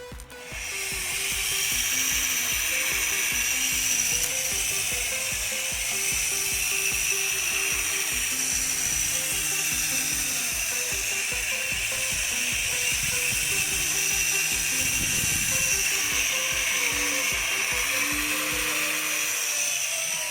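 Homemade mini grinder (a 12 V 775 DC motor with an angle-grinder adapter) running steadily with a high whine and hiss. It starts about half a second in and keeps an even pitch until just before the end.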